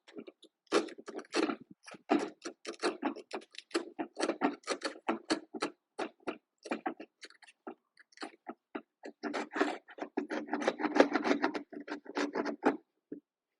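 Hand tool scraping and shaving wood in quick, irregular strokes, as in cleaning out a half-lap joint by hand. The strokes come thickest and longest a little past the middle.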